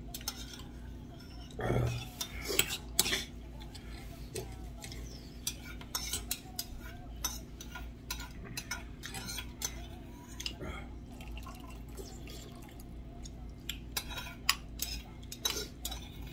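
Metal utensils on a stainless steel spoon, with light clicks and scrapes scattered throughout as food is picked out of the spoon. A short voice sound comes about two seconds in.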